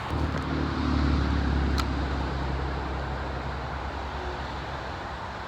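A motor vehicle passing on a road: a low engine hum that comes up at the start, is loudest a second or two in and fades away over the next few seconds, over a steady hiss. A single sharp click near the middle.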